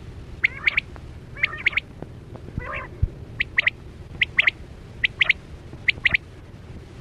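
Quail calling: six short, clear three-note phrases, a single note then a quick pair, repeated about once a second. A rougher, scratchier call comes in about two and a half seconds in.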